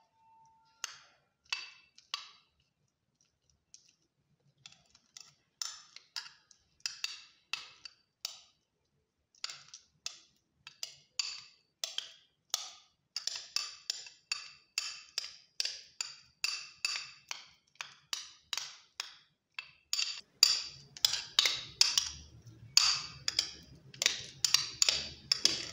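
Metal spoon mashing banana in a glass bowl, clicking and tapping against the glass in a quick run of short strokes, about two to three a second, louder near the end.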